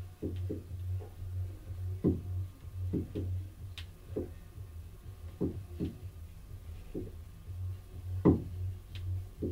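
Doorway pull-up bar and hand grips giving soft, irregular knocks and creaks under the strain of slow pull-ups, over a steady low hum.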